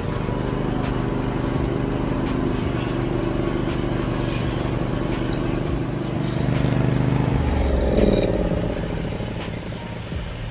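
Garden tractor's twin-cylinder engine running steadily under way, its note changing about eight seconds in and quieter near the end.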